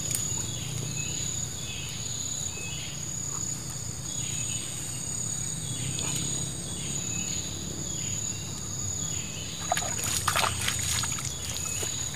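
Insects shrilling steadily in riverside grass, with a chirp repeating in a regular rhythm over a low hum. About ten seconds in come a few rustles and knocks of movement in the grass.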